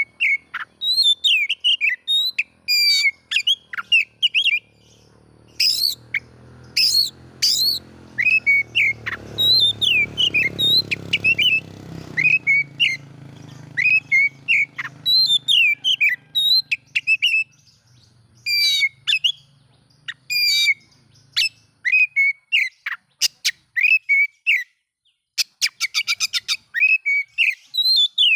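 Oriental magpie-robin (kacer) singing a loud, varied song of whistled notes, chirps, sharp clicks and fast rattling trills. A faint low rumble swells and fades beneath it in the middle.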